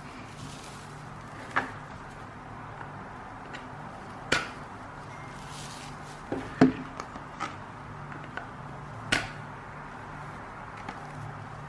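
A few separate light knocks and taps, a couple of seconds apart, as objects are handled and set down, over a steady low hum.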